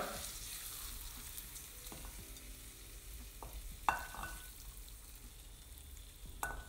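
A silicone spatula scrapes and spoons paneer masala out of a hot wok into a ceramic bowl over a faint sizzle. There are a few soft knocks, and two sharp clinks with a brief ring, one about four seconds in (the loudest sound) and one near the end.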